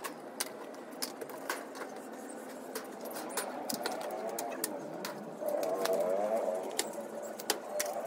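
Pigeons cooing, loudest a little past the middle, over scattered sharp clicks and knocks.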